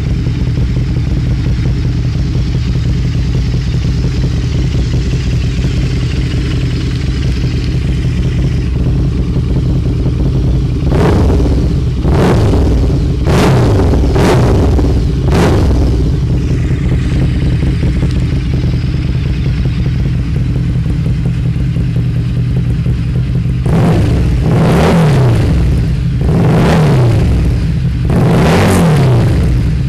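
Harley-Davidson V-Rod's liquid-cooled V-twin running through a 2-into-1 exhaust: it idles steadily, then is blipped five times in quick succession about eleven seconds in, each rev dropping back to idle. Near the end it is revved three more times, a little longer each time.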